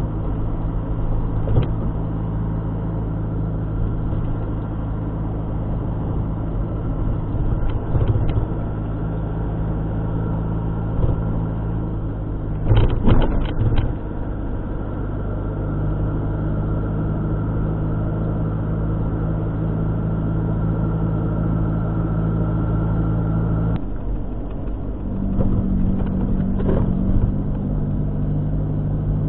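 A car being driven, its engine giving a steady hum with occasional knocks and thuds, a loud cluster of them about halfway through. The engine note changes about four-fifths of the way in.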